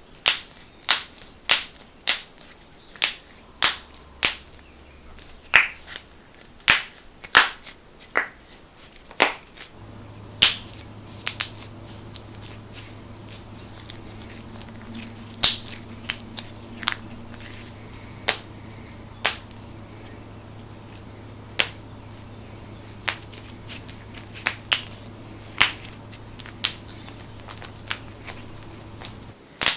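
Knuckles cracking: a long run of sharp, separate pops, about one or two a second, some in quick pairs. A low steady hum sits under them from about a third of the way in.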